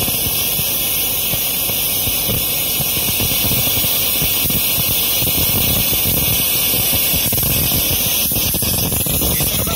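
Small oxygen and PMMA (acrylic) hybrid rocket motor firing steadily: an even, loud hiss of oxygen burning the acrylic fuel block and jetting out through its converging-diverging de Laval nozzle.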